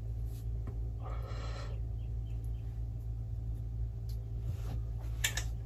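Steady low electrical hum on a rough microphone, with a soft hiss about a second in and a sharp knock near the end.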